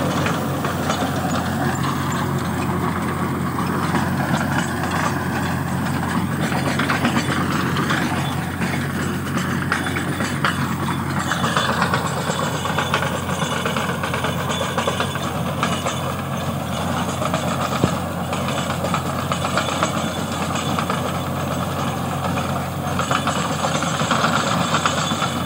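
Mahindra 575 DI tractor's four-cylinder diesel engine running steadily under load, driving a rotavator that churns through dry soil.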